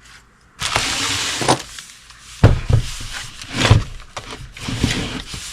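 Packaging rustling for about a second, then several sharp knocks as the parts of a small chainsaw are handled and set down while being unboxed.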